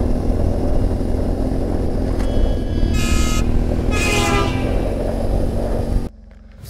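Vehicle engine and road rumble with two short horn honks about a second apart, cutting off suddenly near the end.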